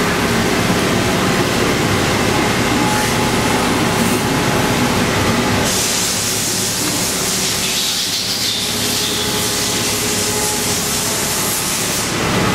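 Haas VF-3 CNC vertical machining center running, milling an aluminum part under coolant: a steady mechanical noise with several held tones. A loud high hiss joins about six seconds in and stops shortly before the end.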